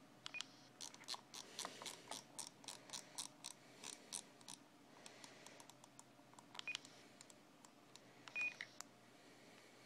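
Faint clicking from the controls of an ICOM ID-52 handheld transceiver as characters of a reflector name are entered: a quick run of about three or four clicks a second over the first few seconds, then scattered clicks, with a few short key beeps.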